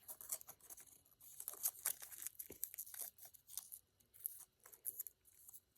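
Aluminium foil being handled, crinkling and tearing in quick, irregular, faint crackles.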